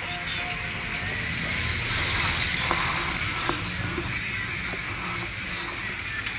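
A car driving past: a low engine rumble under a broad hiss that swells about two to three seconds in.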